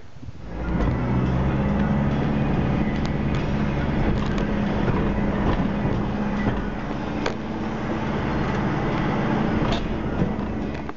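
Vehicle driving across a timber-plank bridge deck and onto a dirt track, picking up speed over the first second. Steady engine hum under tyre and road rumble, with a few sharp knocks from bumps.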